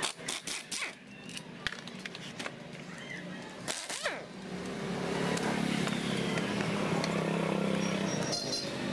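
Clicks and knocks of a screwdriver bit and screws on the plastic cover of a Shindaiwa 345 chainsaw, as the recoil-starter cover is being unscrewed. About halfway through, a steady motor hum starts and runs on until near the end.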